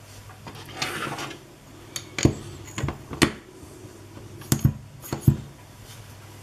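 Glass and metal clicking and knocking as the glass test-tube cylinder of a model Manson hot-air engine is handled and fitted into its steel frame. A brief rustle about a second in, then about eight sharp clicks spread over the next few seconds, over a faint steady hum.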